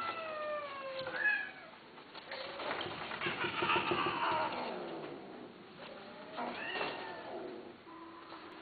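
A cat meowing in a string of drawn-out calls that slide down in pitch, with a longer, rougher yowl in the middle and a shorter call near the end.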